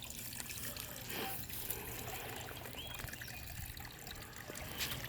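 Faint, steady trickle of water from a koi pond.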